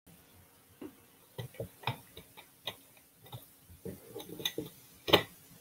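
Irregular light clicks and taps, a dozen or so, spaced unevenly, with the loudest about five seconds in, over a faint steady hum.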